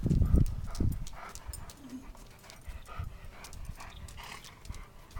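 A golden retriever panting and moving about, with scattered light clicks and knocks throughout and a few heavier thumps in the first half second.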